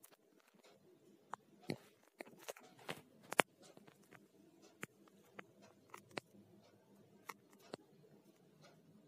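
Faint room noise: irregular small clicks and ticks, a dozen or so at uneven spacing, over a low steady hum.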